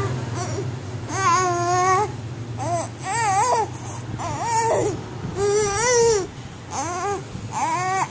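A baby about three months old cooing and babbling: a run of about seven short, high-pitched vocal sounds that swoop up and down in pitch.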